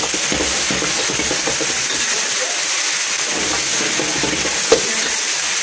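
Leafy greens sizzling as they are tossed in a hot wok over a gas flame, with a single sharp knock near the end.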